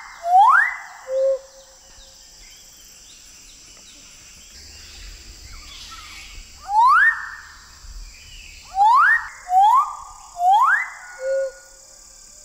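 Male Magnificent Riflebird giving its loud advertising call: whistles that sweep sharply upward, each ending in a brief buzzy tail. One comes at the start, one about seven seconds in, then three in quick succession, followed by a short lower note.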